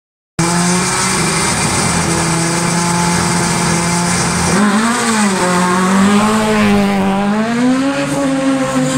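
Citroën hatchback race car's engine held at steady high revs on the start line, then launching about four and a half seconds in, its revs rising and falling as it accelerates away.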